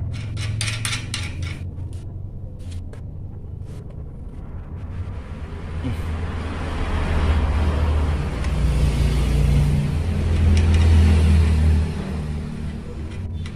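A motor vehicle's engine rumbling, growing louder over several seconds and dropping away suddenly about twelve seconds in. Near the start there are a few light clicks of small hardware being handled.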